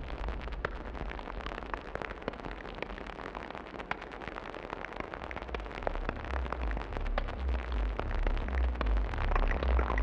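Experimental electronic techno track: a dense crackling noise texture scattered with sharp clicks. A deep pulsing bass comes back about halfway through and the whole grows louder toward the end.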